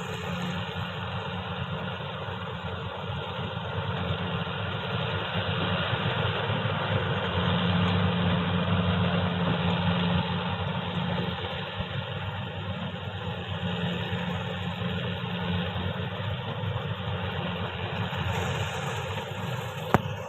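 Rice combine harvester's engine running steadily, swelling slightly in the middle, with one sharp click near the end.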